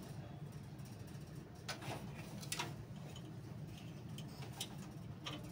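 A handful of light clicks and taps of metal tweezers and small parts being worked into the front power-switch opening of a steel PC case, over a steady low hum.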